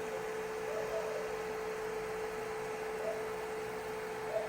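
A steady hum with one clear mid-pitched tone over a fainter lower drone, cutting in abruptly at the start and holding level throughout.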